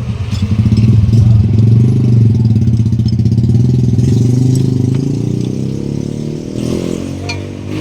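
An engine running steadily with a low hum, growing quieter near the end.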